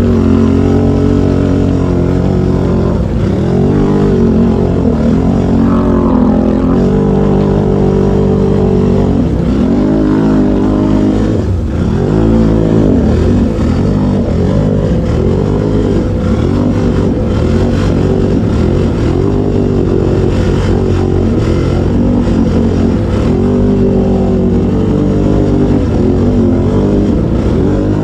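Can-Am ATV engines (a Renegade X-MR 1000R and an Outlander 700 X-MR) revving up and down over and over as the quads plough through deep swamp water, with water splashing and spraying.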